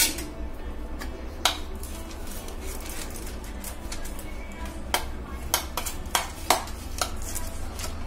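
Scattered light clicks and knocks of a metal cake tin being handled while ghee is brushed around it with a silicone pastry brush, the sharpest right at the start and a cluster of them near the end, over soft background music.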